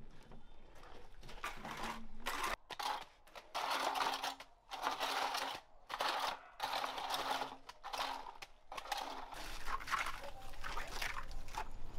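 Hand trowel scraping and spreading wet concrete in repeated rough strokes with short breaks between them.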